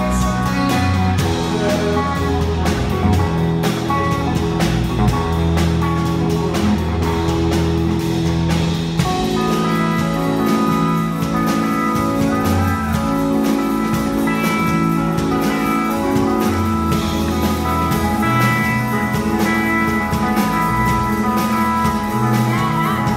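Rock band playing live: electric guitar over bass and a drum kit with regular cymbal strikes.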